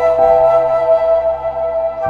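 Calm background music: one long held melody note over soft sustained chords, with the lower notes changing shortly after the start.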